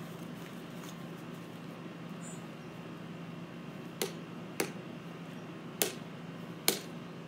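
Plastic wiffle ball being tapped up on a paddle: four sharp, unevenly spaced taps in the second half, over a steady low hum.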